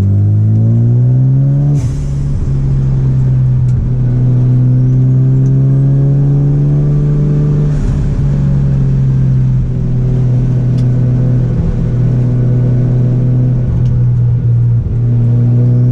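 Mazda RX-7 FD's twin-rotor 13B rotary engine pulling hard under acceleration, its pitch climbing, then dropping at a gear change about two seconds in and again about eight seconds in, with a short hiss at each shift; after that it runs at a steadier, slowly falling pitch.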